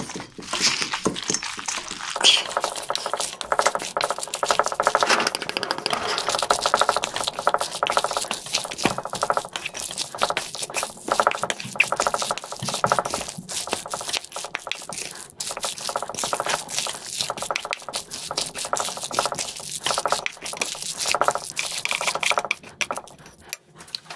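Wooden spoon mixing bibimbap in a stainless steel bowl, stirring rice with radish salad, kimchi, tuna, egg, gochujang and sesame oil. Wet, sticky mixing goes on without a break, with many short scrapes and taps of the spoon against the metal bowl.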